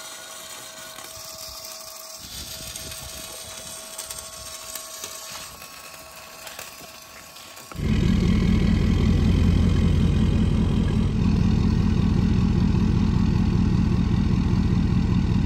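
MIG welding crackling and hissing steadily. About eight seconds in, a much louder diesel engine cuts in suddenly and keeps running at a steady idle with a deep drone.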